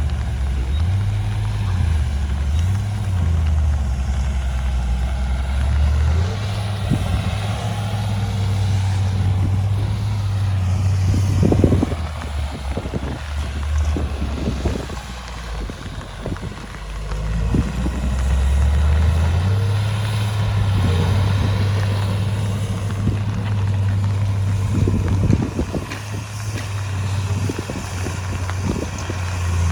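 Heavy diesel engine of earthmoving machinery running with a steady low drone. About twelve seconds in it eases off, and a stretch of knocks and clanks follows. It comes back up some seven seconds later.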